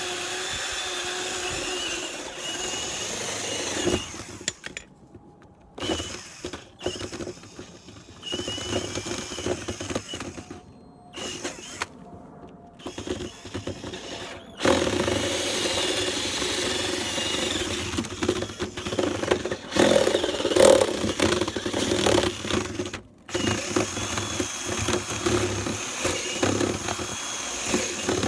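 Electric drill boring into the edge of a wooden door to cut a lock mortise. It runs in several long bursts with brief stops between them.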